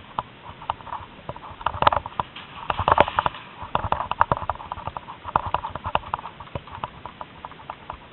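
Footsteps on a gravel path: an irregular run of crunches and knocks, with the louder clusters about two and three seconds in.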